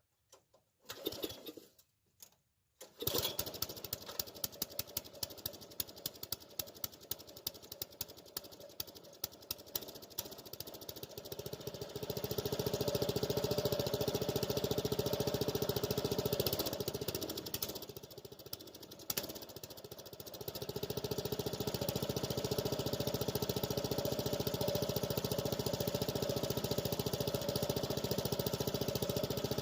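Small gasoline engine starting about three seconds in after a few short sounds, running fast and unevenly at first, then settling to a steady high speed about twelve seconds in. It eases off briefly around eighteen to twenty seconds before running steadily again.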